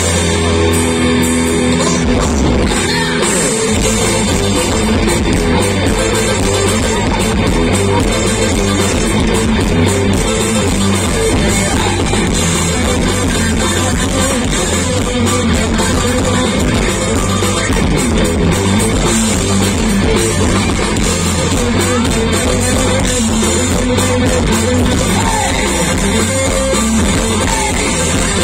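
A live rock band playing loud music.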